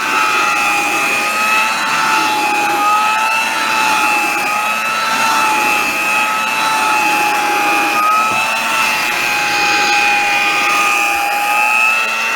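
Vintage Hamilton Beach straight-suction hand vacuum cleaner running steadily, its motor giving a high whine that wavers slightly in pitch.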